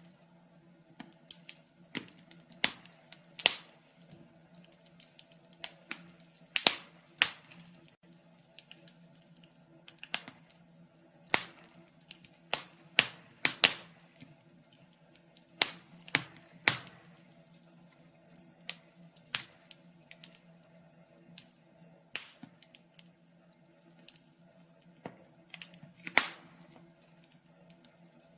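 Wood fire crackling: irregular sharp pops and snaps, some loud and some faint, over a faint steady low hum.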